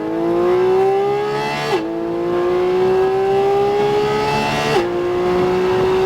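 Porsche 718 Cayman GT4 RS's naturally aspirated 4.0-litre flat-six accelerating hard at full throttle. Its note climbs steadily and drops sharply at two quick upshifts, about two seconds in and again near five seconds.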